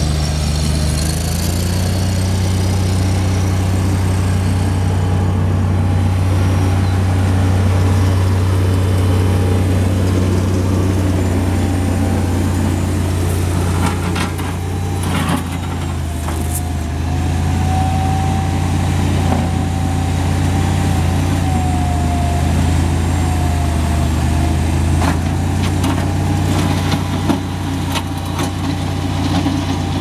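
Bobcat MT52 mini track loader's diesel engine running steadily. About halfway in a faint wavering whine rises over the engine, with a few knocks around the middle.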